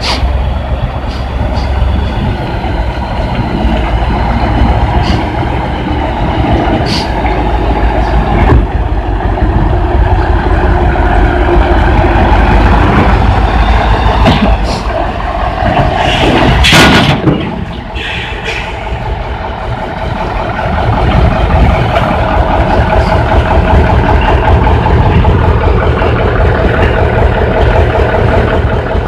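Heavy diesel truck engine running steadily as the loaded flatbed moves slowly. A short, loud hiss cuts in a little past halfway.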